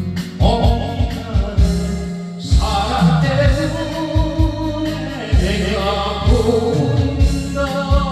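A song with a singing voice over a backing track with a steady bass beat, most likely karaoke music played through a karaoke sound system.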